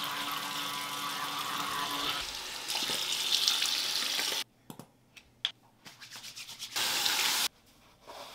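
A steady rush like running water, with a low hum under it for the first two seconds. It cuts off suddenly about four and a half seconds in, followed by a few scattered clicks and a short burst of hiss near the end.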